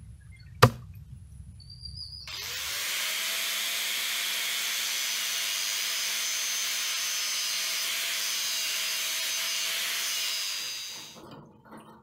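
Angle grinder with a cut-off disc cutting into a rusty square steel bar: it speeds up and then gives a steady, high grinding hiss for about eight seconds before winding down near the end. A single sharp click, the loudest sound, comes about half a second in, before the grinder starts.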